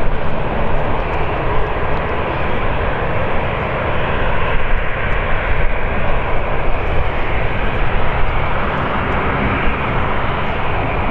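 Jet engines of an Airbus A350 (Rolls-Royce Trent XWB) running at taxi power as the airliner rolls along the taxiway close by: a loud, steady jet roar with a heavy low rumble.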